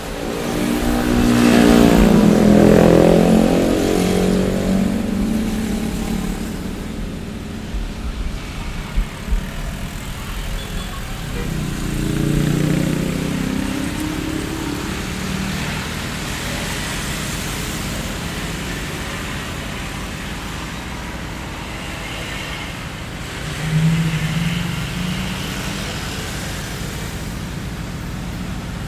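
Street traffic: cars passing one after another over a steady roadway hum. The loudest pass is about two seconds in, with further passes around twelve and twenty-four seconds in.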